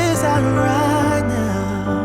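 Background music: a slow, sad pop ballad with a sung melody over a steady bass.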